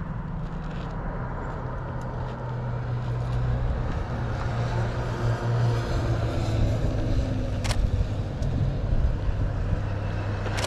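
A car engine running with a steady low hum that swells louder in the middle, with a sharp click about eight seconds in.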